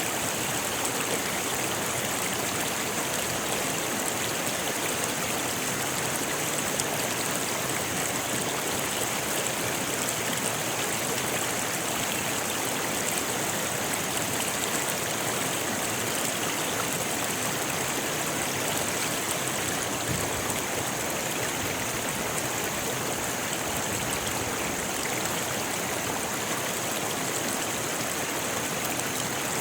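Rocky river flowing steadily over stones: an even, unbroken rush of water with a bright hiss on top.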